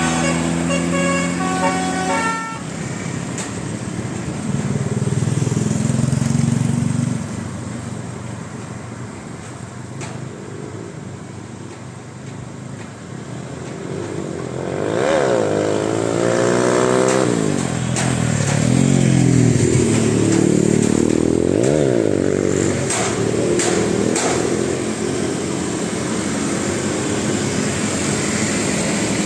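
A bus's 'telolet' musical horn playing a quick stepped melody, cutting off about two and a half seconds in. Vehicle engines then run on steadily, with pitched sounds that slide down and back up in pitch about halfway through and again a few seconds later.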